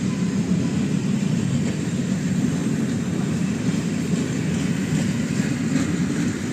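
Train hauled by steam locomotive 488 007 running past: a steady, even rumble with no distinct beat.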